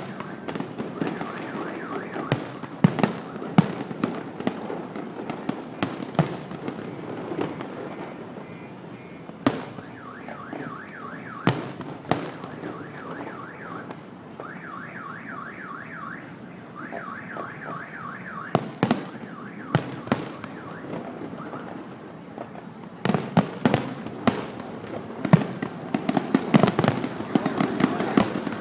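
Fireworks display: a string of sharp bangs and crackling bursts, dense at first, sparser in the middle and building again into a rapid barrage near the end. Through the middle stretch a repeating rising-and-falling electronic tone sounds alongside the bangs.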